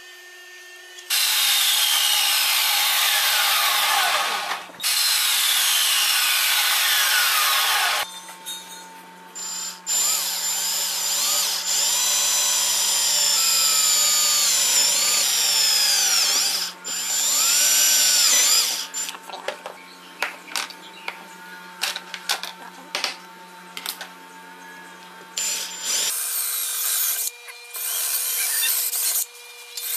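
Cordless drill boring holes into a wooden block, at first through a clear acrylic template. It runs in a few long stretches with brief stops, then in short trigger bursts near the end.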